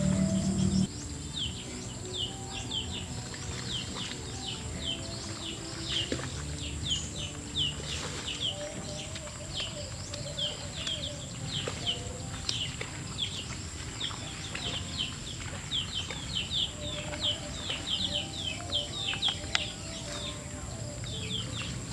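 Birds chirping: many short, quick falling chirps repeating throughout, over a steady high-pitched hum. A louder low sound cuts off about a second in.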